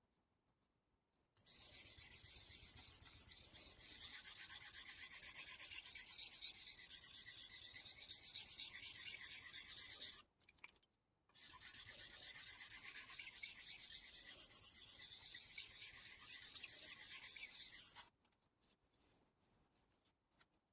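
Kiritsuke kitchen knife blade stroked back and forth on a 1000-grit Taidea whetstone, a steady scratchy rasping. It comes in two long stretches with a brief pause about ten seconds in.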